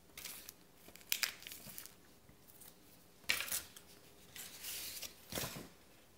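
Small plastic packets crinkling as they are handled, in about five short rustles with quiet gaps between.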